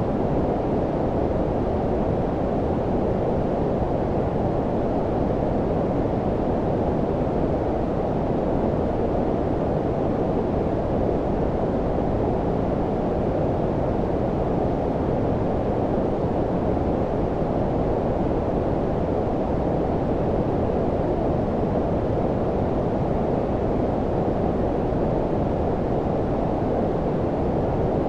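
Steady synthetic low-frequency noise, a deep, muffled hiss with its energy below about 1 kHz, unchanging throughout.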